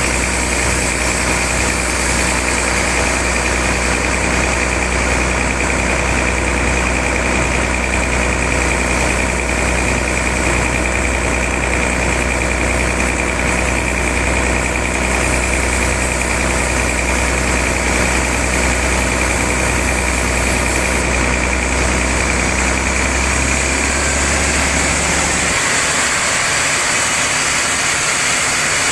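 Sawmill machinery running steadily, with a deep hum and a thin high whine; the deep hum cuts out about 25 seconds in while the rest keeps running.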